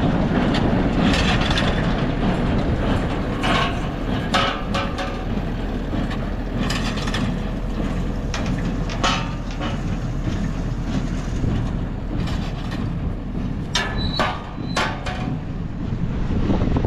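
Tractor and small square baler running in the field, a steady low rumble with irregular clunks and rattles from the baler and the towed hay wagon.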